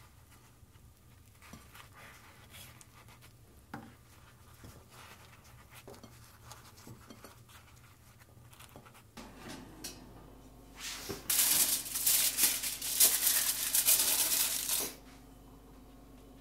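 Aluminium foil torn and crinkled loudly for about four seconds, stopping abruptly. Before it, only faint taps of food being handled on a plate.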